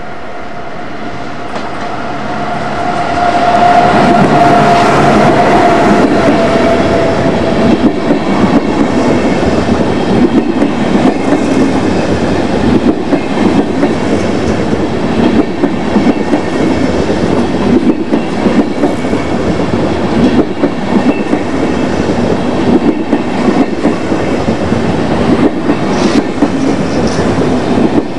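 Electric locomotive and InterCity coaches passing close by. The sound swells over the first few seconds with a steady whine as the locomotive goes past. The coaches then roll by, wheels clicking rapidly over the rail joints.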